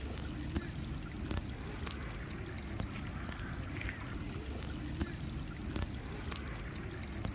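Water spilling over the low concrete steps of a narrow garden channel, a steady rush with a few faint clicks.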